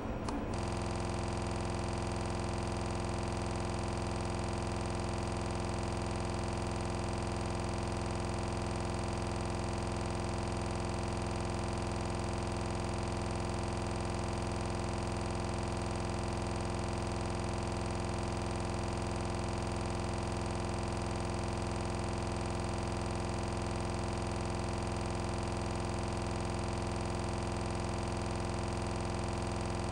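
A steady, unchanging hum made of many fixed pitches, starting about half a second in, just after the speech stops.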